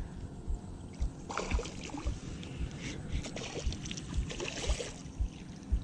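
Water splashing as a hooked fish fights at the surface close to the bank, in two louder stretches, about a second in and again from three to five seconds. Under it runs a dull low thump about twice a second.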